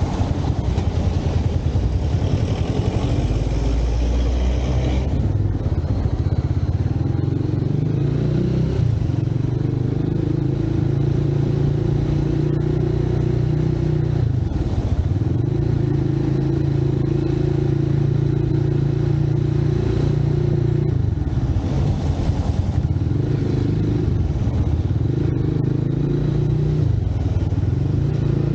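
Motorcycle engine running while riding through city traffic, heard from on the bike, with road and wind noise. The engine note holds steady, then drops and picks up again a couple of times as the throttle eases and opens. A brighter rushing noise fills the first few seconds.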